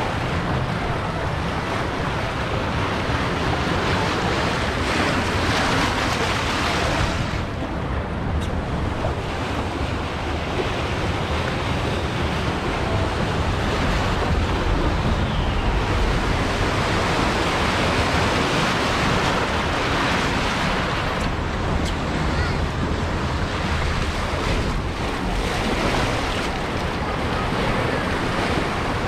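Rushing, churning water of an Intamin river rapids ride around the raft, with wind buffeting the microphone.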